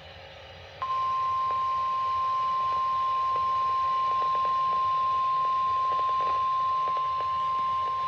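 Emergency alert attention tone, the single steady 1050 Hz warning alarm of NOAA Weather Radio, starting abruptly about a second in and sounding unbroken over faint radio hiss. It signals that a weather warning bulletin follows.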